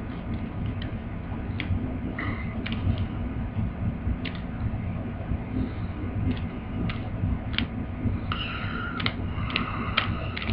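Plastic twisty puzzle being turned by hand: scattered clicks of pieces snapping into place, with two short scraping stretches of plastic rubbing on plastic near the end. The puzzle is not lubricated.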